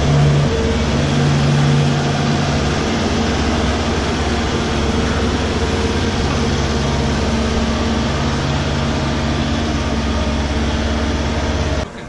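Skid-steer loader's engine running steadily while its bucket tips out a load of sawdust bedding. The engine note strengthens for a few seconds at the start and again in the middle, and the sound cuts off abruptly just before the end.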